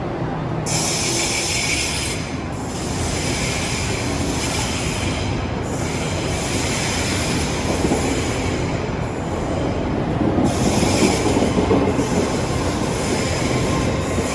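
A train moving through the station with a continuous rumble, its wheels squealing high-pitched in long stretches that break off briefly several times.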